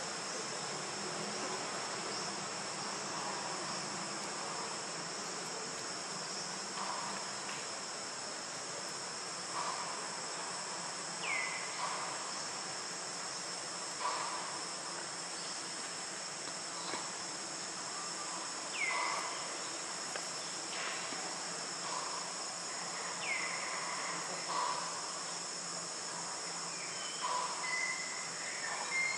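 Steady chorus of forest insects, a high buzzing drone made of several constant tones. A short falling call cuts through it three times, and soft brief chirps are scattered throughout.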